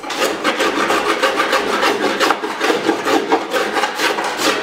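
A Veritas molding scraper scraping along the cedar strips of a wooden kayak hull in quick, repeated strokes, knocking off dried glue and high spots between the strips.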